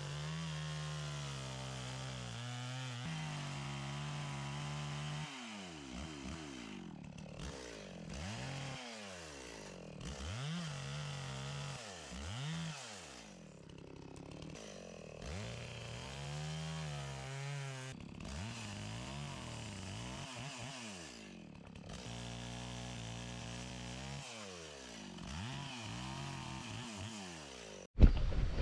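Chainsaw carving wood, running at a steady pitch for a few seconds, then repeatedly revving up and easing off as it cuts. It stops abruptly near the end.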